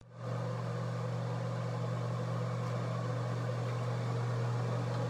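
A steady low mechanical hum with a faint even hiss above it, starting right at the beginning and holding unchanged.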